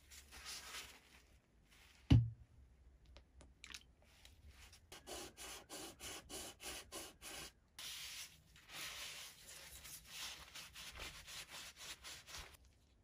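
Rag rubbing and wiping a part of a Stanley bullnose plane in quick repeated strokes, with a single sharp knock about two seconds in.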